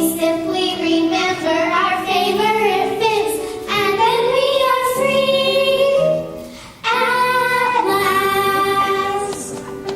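Children singing a song with instrumental backing, holding long sung notes; the singing drops away briefly just before seven seconds in, then comes back.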